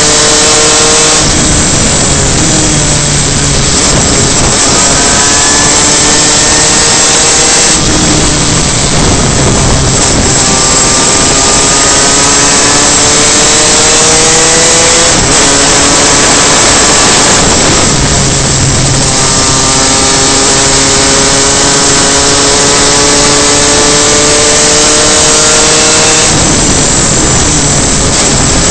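Superkart engine running hard at speed, heard close up over a steady rush of wind noise. Its pitch climbs steadily for several seconds at a time and drops back sharply four times.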